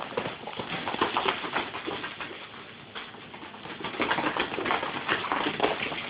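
Young Airedale puppies whimpering and squeaking, mixed with many short clicks and scuffs, busiest about a second in and again from about four seconds in.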